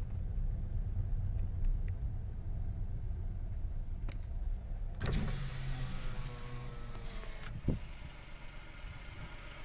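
Car engine and road rumble heard inside the cabin as the car rolls slowly, then about halfway through an electric side window is run down and outside air noise comes in, with a single knock near the end.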